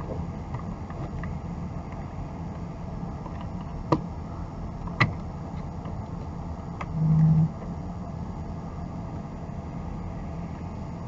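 Steady low rumble of a car driving, heard from inside the cabin, with a few sharp clicks and a brief low tone of about half a second near the middle, the loudest sound here.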